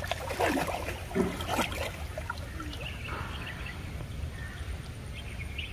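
Outdoor rural ambience: a steady low rumble, a few short rustling or splashing strokes in the first two seconds, and faint high chirps later on.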